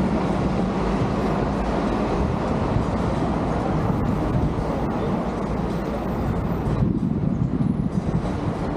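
Steady rumbling, rushing noise of a vehicle in motion, with no distinct engine note or other events standing out.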